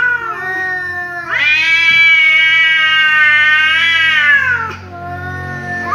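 Angry cat yowling between a black-and-white tomcat and a ginger cat in a face-off. A short yowl opens, then one long drawn-out yowl of about three seconds holds a fairly even, slightly wavering pitch. A new yowl starts near the end.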